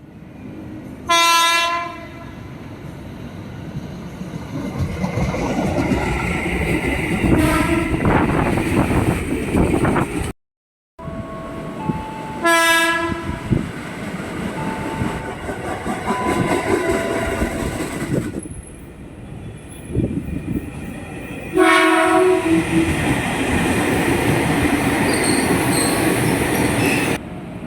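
KRL Commuterline electric commuter trains sounding their horns: short blasts about a second in and around the middle, and one long held blast near the end, over the rumble and wheel clatter of passing trains.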